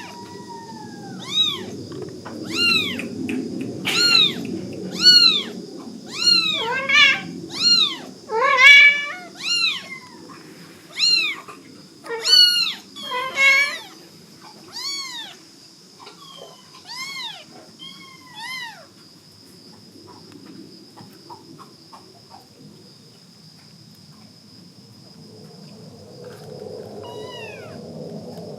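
Month-old kittens mewing over and over in short, high cries that rise and fall, sometimes two at once. After about two-thirds of the way the calls stop, with a couple more near the end.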